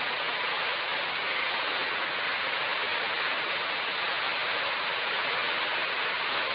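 Steady, even rushing hiss of background noise with no change or distinct events.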